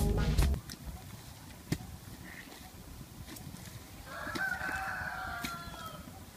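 A rooster crows once, for just under two seconds, starting about four seconds in. Before it, background music cuts off just after the start, and a few sharp knocks sound as a metal digging bar strikes the wet soil.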